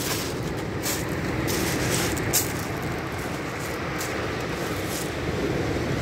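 Storm surf breaking and washing over a shingle beach: a steady rush of noise, with a few short crackles scattered through it.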